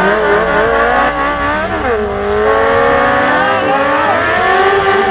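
Sport bike engine revving hard during a stationary burnout, held at high revs with its pitch dipping and climbing as the throttle is worked. There is a sharp dip and climb about two seconds in, while the rear tyre spins and smokes.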